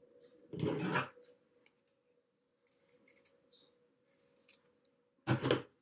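Scissors cutting fabric: two short snips, one about half a second in and one near the end, with a few faint handling clicks between.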